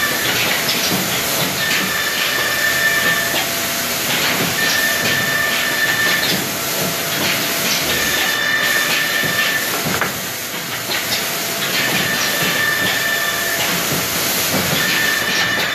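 Woodworking machinery in a panel factory running with a steady hiss, and a pitched whine that comes in for about a second and a half roughly every three seconds, about five times.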